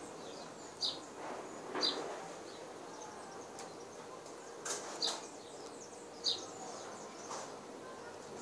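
A bird chirping: short high notes repeated roughly once a second, over steady background noise.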